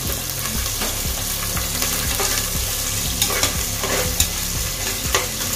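Sliced onions and curry leaves sizzling in hot oil in a pressure cooker while being stirred with a metal spatula, which scrapes and clicks against the pot again and again.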